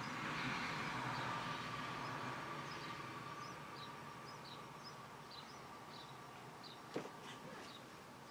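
A passing car's noise fading away over the first few seconds, while a bird repeats short, high, falling chirps about twice a second. One sharp click about seven seconds in.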